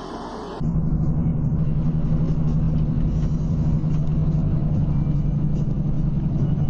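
Steady low engine drone and road rumble of a vehicle cruising at highway speed. It starts abruptly about half a second in, after fainter city traffic noise.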